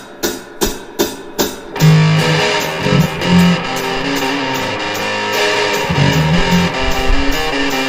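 Rock music with electric guitar: a run of evenly spaced hits, about two and a half a second, then the full band with bass and drums comes in a little under two seconds in.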